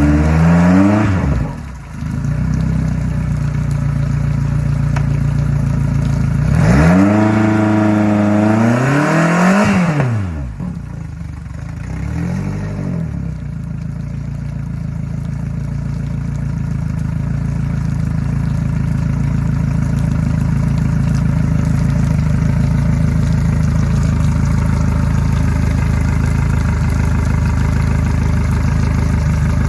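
Yamaha F115 four-stroke outboard engine running: a quick rev at the start, a longer rev up and back down from about seven to ten seconds in, a short blip a few seconds later, then idling steadily.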